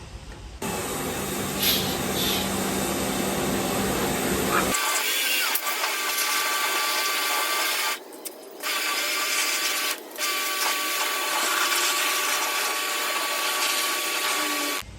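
Pressure washer running: a steady motor hum and whine with a hissing water spray. The sound changes about a third of the way in, cuts out briefly twice in the middle, and stops just before the end.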